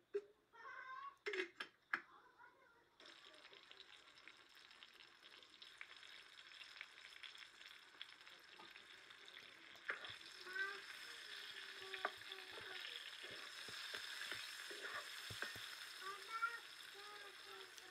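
Oil sizzling in a frying pan as green chillies fry. A few sharp knocks come first, then the sizzle starts suddenly about three seconds in and grows, with a wooden spatula clicking and scraping against the pan as they are stirred.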